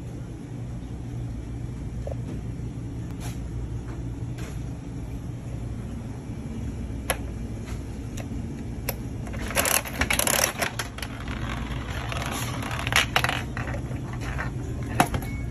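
Coin-operated spiral gumball machine in use: a coin goes into the chrome coin mechanism and the handle is turned, giving a run of metallic clicks and clatter about ten seconds in. A few seconds later there are more clicks and knocks as the gumball comes down the plastic spiral chute to the flap door.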